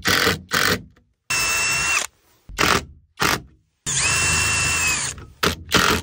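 Cordless brushless drill/driver driving screws through a steel bracket into wood: two steady runs of about a second each, with a high whine that drops as the motor winds down, and several short trigger blips in between.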